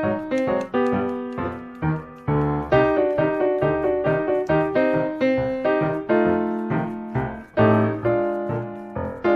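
Background piano music: a steady run of struck notes with a bass line, in an even rhythm.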